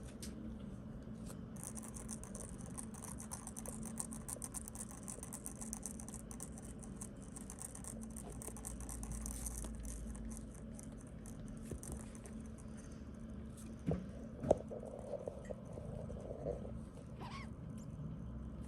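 Kittens' paws and claws scrabbling and scratching rapidly on a fabric surface as they play, followed later by two light knocks, over a steady low hum.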